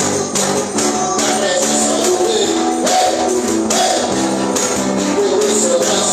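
A church worship band playing, with tambourine shaken on the beat over guitar and sustained chords.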